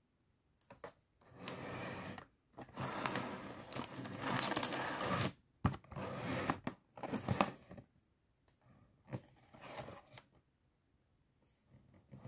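A cardboard box of foil-bagged LEGO minifigures being handled and turned, giving several stretches of scraping, crinkling noise that are loudest in the middle, with fainter rustles near the end.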